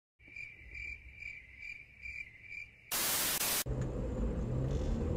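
A high-pitched chirping beep repeats about two and a half times a second. About three seconds in it gives way to a loud burst of static hiss lasting under a second, followed by the steady low road and engine rumble heard inside a car through a dashcam.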